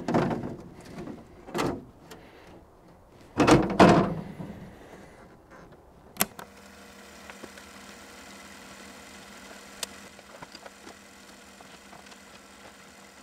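A few dull thumps and knocks of parts being handled against the Land Cruiser's tailgate, the loudest about four seconds in, then a sharp click a little after six seconds. After that only a faint steady hum with a few small ticks.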